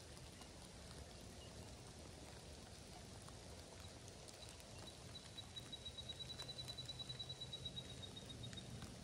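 Faint light rain, with scattered drops ticking through a soft steady hiss. From about four seconds in, a high, rapid animal trill joins in, strongest in the middle and trailing off slightly lower near the end.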